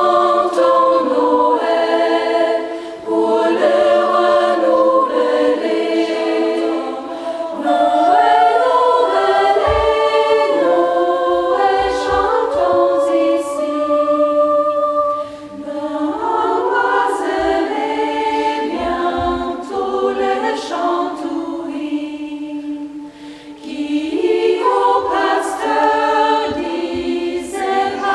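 Choir of mostly women's voices singing unaccompanied in several-part harmony, the phrases breaking off briefly a few times.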